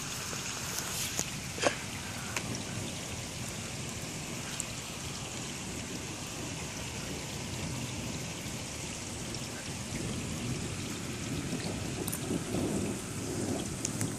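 Steady rain falling during a thunderstorm, with a low rumble of thunder swelling in the last few seconds. A single sharp tick about a second and a half in.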